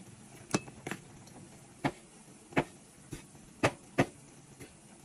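Kitchen knife cutting through boiled pork and knocking on a bamboo cutting board: a string of sharp knocks at an uneven pace, roughly two a second.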